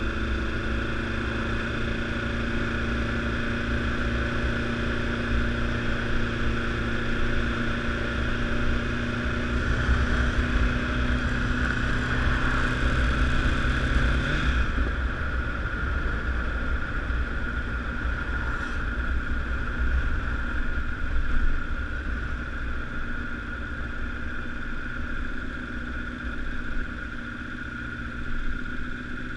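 Honda CBR1000RR's inline-four engine running at a steady speed under wind noise. About halfway through, the engine's low steady hum drops away and the note changes.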